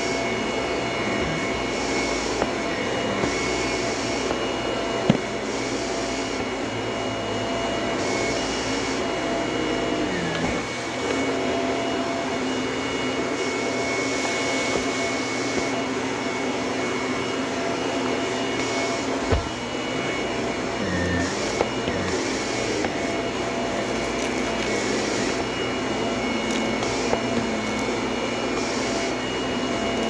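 Shark corded upright vacuum cleaner running steadily on carpet, a constant motor whine over its suction rush, the hiss swelling and easing every second or two as it is pushed back and forth. A couple of brief knocks, about five seconds in and again near the middle.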